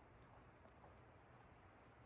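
Near silence: faint, steady background hum with no distinct sounds.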